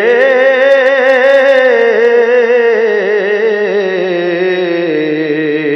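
A solo voice singing a Punjabi rubai, holding one long, wavering note that steps down in pitch near the end.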